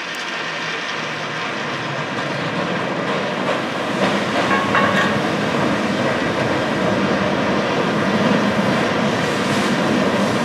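San Francisco cable car running down its track towards the listener, a steady rumble of rails and the cable in its slot that grows gradually louder as it approaches.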